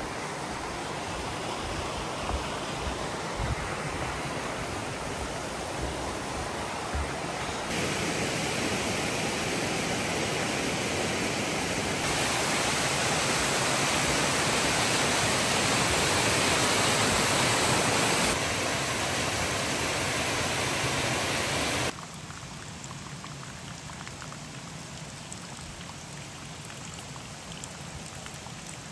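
Rushing river water and cascades, a steady rush that changes loudness in sudden steps: louder about eight seconds in, loudest through the middle, then abruptly dropping to a quieter, duller rush for the last several seconds.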